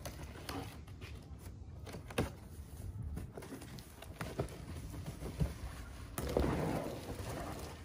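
A cardboard box being opened by hand, its flaps pulled apart with scattered knocks and scrapes. About six seconds in, a louder rustle of cardboard and packing as hands reach into the box for the wrapped telescopic ladder.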